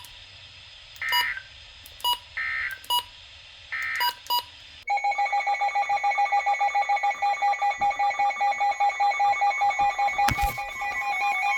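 Three short buzzy data bursts of an Emergency Alert System digital code, about 1.3 s apart, mark the end of a NOAA Weather Radio message. About five seconds in, a loud electronic alarm starts, beeping rapidly at about four pulses a second.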